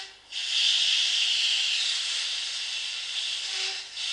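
Nitrogen hissing out of an open air-conditioner refrigerant pipe being purged of dirt and moisture, driven with the compressor running. The jet stops for a moment right at the start, then blows steadily, easing a little toward the end.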